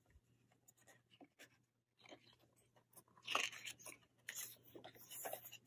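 Faint rustling and scuffing of a photobook's paper pages being handled, in soft irregular bursts over the second half, over a steady low hum.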